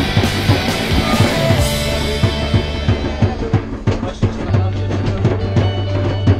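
Hand drums beaten by hand in a quick, repeated rhythm, with other percussion, inside a moving train carriage.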